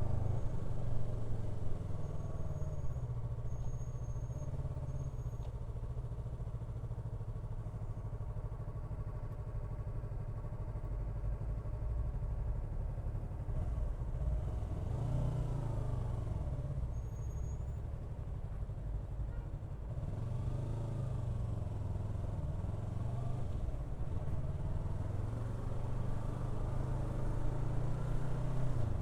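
Yamaha R3's 321 cc parallel-twin engine running while riding, its revs rising and falling with the throttle a couple of times midway, over wind rumble.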